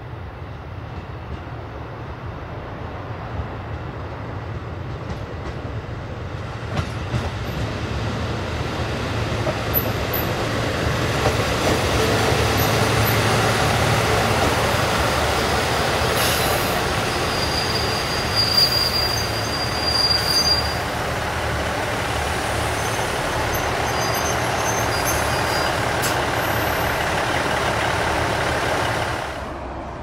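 Six-car KiHa 85 series diesel railcar train drawing slowly alongside the platform, its Cummins diesel engines running with a low hum under the rumble of wheels on rail, growing louder as it comes close. A brief high squeal comes in about eighteen seconds in, and the sound cuts off just before the end.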